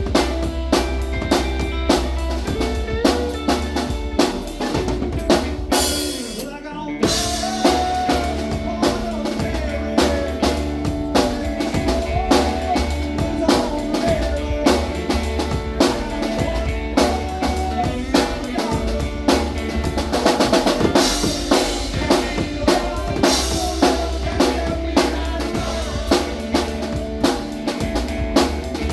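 Live band playing a rock song driven by a drum kit with a steady kick-and-snare beat under bass and other instruments, with a brief break in the beat about six seconds in.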